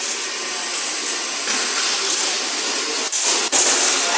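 Steady, loud hissing background noise of a large industrial hall, with two brief dips about three seconds in.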